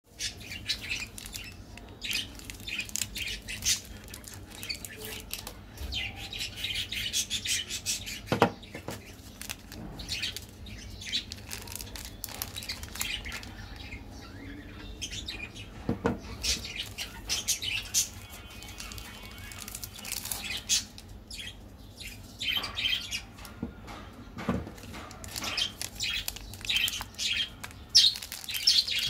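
Plastic candy-bar wrappers crinkling and rustling as chocolate wafer bars are unwrapped by hand, with three louder knocks spread through.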